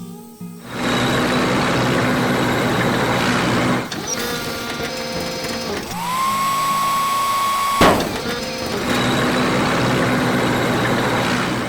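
Power-tool-like mechanical whirring in two long stretches. Between them, a whine rises and holds for about two seconds, then ends in a sharp click.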